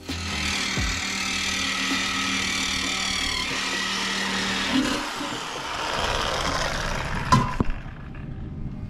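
Corded reciprocating saw (Sawzall) cutting through a steel exhaust muffler hanger: a steady motor hum over a metallic rasp. About five seconds in the sound turns to a rougher, lower rumble, and two sharp knocks come about seven seconds in.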